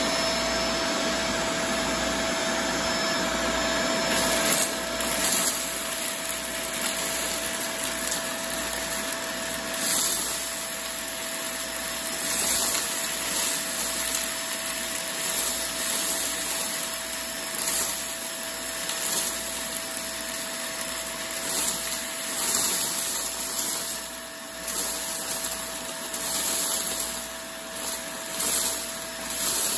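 Bagless upright vacuum cleaner running with its hose wand, with a steady motor whine, sucking up small crunchy debris. From about four seconds in, bursts of rattling come again and again as the bits rush up the hose into the clear dust bin.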